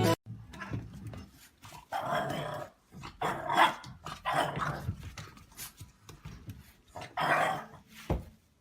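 A dog growling and barking in a string of short, irregular bursts.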